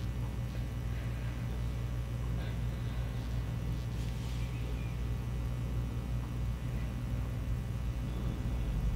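A steady low hum with faint, scattered sounds over it.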